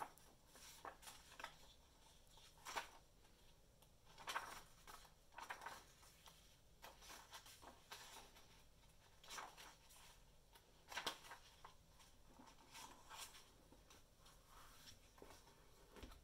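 Paperback book pages being turned by hand: soft, brief papery swishes every second or two. Near the end, a light low knock as the closed book is laid on the wooden table.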